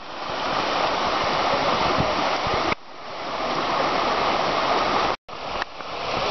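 Mountain creek rushing over rocks and small cascades, a steady loud wash of water. The sound drops away suddenly a little under three seconds in and again just after five seconds, each time swelling back up.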